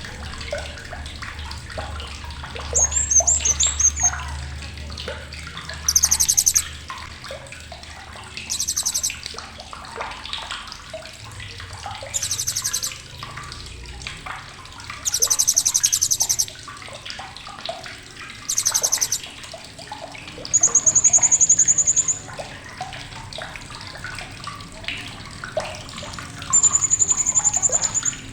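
Blue-crowned hanging parrot (srindit) giving sharp, very high chattering calls in short bursts every few seconds. Near the end come two longer, steady high whistles. Under it runs steady running-water noise.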